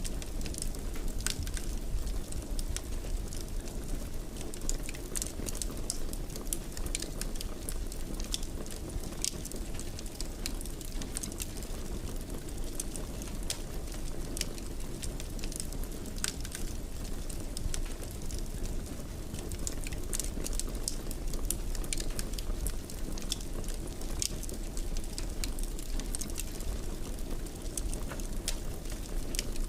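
Wood fire crackling in a fireplace: frequent irregular sharp pops and snaps over a steady low rumble of burning.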